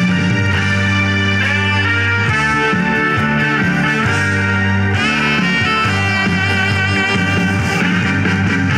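Instrumental intro of a Korean trot song played from a backing track over a PA, with a steady beat, sustained bass notes and melody lines, before any singing comes in.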